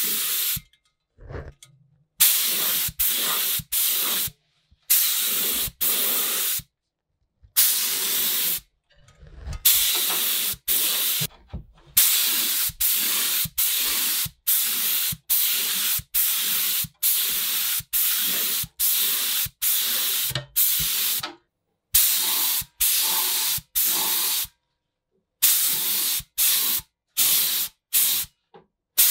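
Gravity-feed spray gun hissing in a long run of short bursts, each cut off sharply as the trigger is released, while 2K primer is sprayed onto a flashlight's sheet-metal body. There are a few brief pauses between passes, the longest just after the start and about three quarters of the way through.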